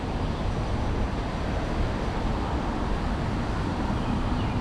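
Steady rumble of street traffic from the roads on either side.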